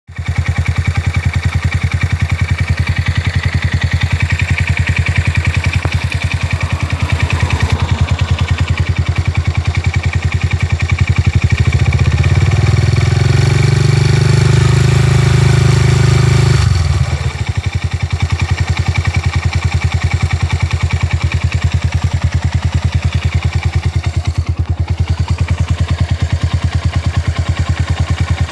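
SYM Wolf motorcycle engine idling with a steady pulsing beat, the revs raised and held for a few seconds about halfway through before dropping back to idle. The engine is presented as making an abnormal noise.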